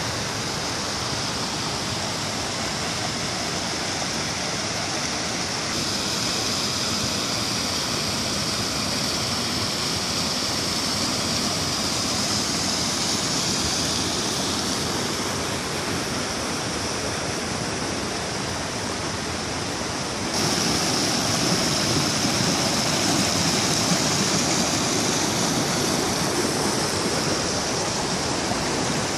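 Creek water rushing steadily over small cascades of fallen logs, a continuous even rush that turns abruptly louder about twenty seconds in.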